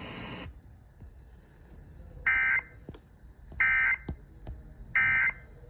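Emergency Alert System end-of-message code: three short bursts of digital data tones about 1.4 seconds apart, the SAME "NNNN" signal that closes an EAS broadcast after the severe thunderstorm warning.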